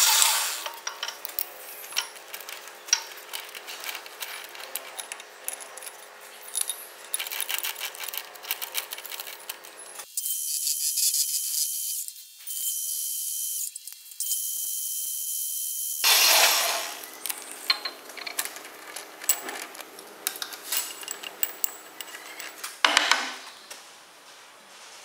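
Metal lathe running while a cutting tool turns a steel part, with a steady hum and small metal chips clinking. Partway through, the hum gives way to a steady high hiss for several seconds, then the lathe sound returns, with a loud burst shortly before the end.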